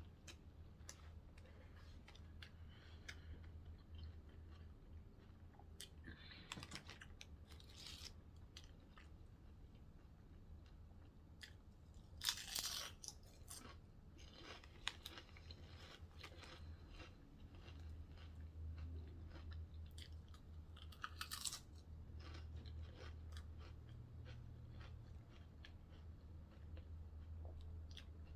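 Close-miked chewing of a Subway sandwich: soft wet mouth clicks, with louder crunches twice. A steady low hum runs underneath.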